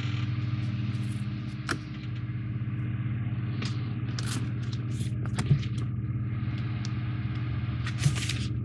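A steady low hum, with a few light clicks over it.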